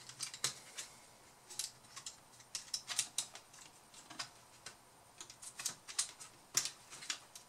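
Irregular small clicks and taps of fingers handling parts inside an opened laptop, fitting the Wi-Fi card and its connectors onto the motherboard.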